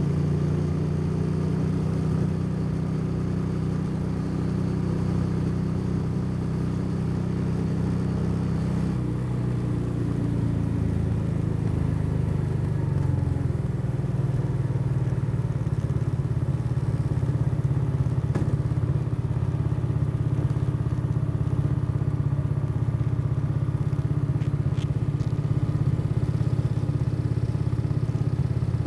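Motorcycle engine running while riding. About nine seconds in, the engine note drops and falls for a few seconds, then holds steady again.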